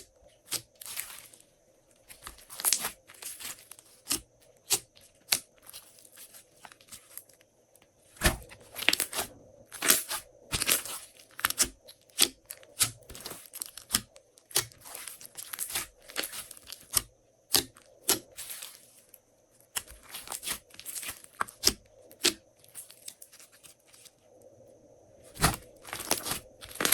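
Hands squeezing, stretching and folding glossy slime, giving irregular sticky pops and crackles in uneven clusters, with short quieter pauses.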